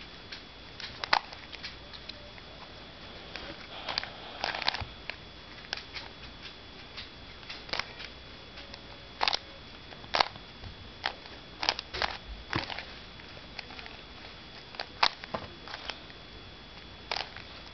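Plastic Rubik's Cube being turned by hand: irregular clicks and clacks as its layers snap round, some coming in quick runs.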